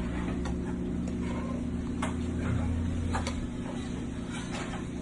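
Steady low hum of kitchen equipment, with a few light clicks and taps as food is plated.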